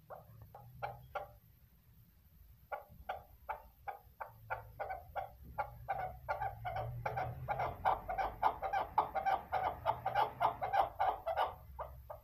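A female chukar partridge calling: a run of short, clucking chuck notes. A few notes open it, then after a short pause they come about twice a second, quickening to a fast, steady chatter of about four a second in the second half.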